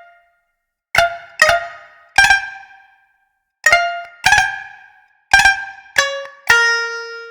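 Sampled Indian plucked-string instrument playing single notes in short groups of two or three with pauses between, each note sharply attacked and decaying; the last note, near the end, rings on longer.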